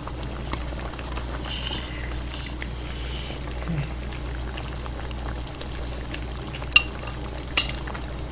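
Pot of kimchi jjigae with ramen noodles bubbling steadily at a simmer, with faint small ticks of utensils. Near the end, two sharp clinks of metal chopsticks on the dishes, under a second apart.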